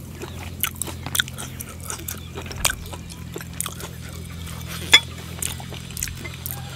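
Fingers picking raw beef pieces out of a small glass bowl of dipping sauce: scattered soft wet clicks and taps, with one sharper click about five seconds in, over a steady low hum.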